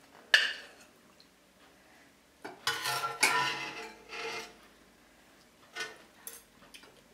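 Metal serving spoon knocking and scraping against a stainless steel pot while scooping out stewed meat and vegetables, in a few scattered clinks. The sharpest knock comes about a third of a second in and a cluster follows about halfway through.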